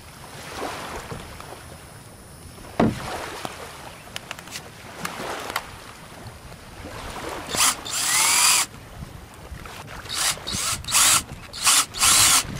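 Power drill run in bursts: a run of about a second with its pitch rising, then several short bursts near the end. A single knock comes about three seconds in.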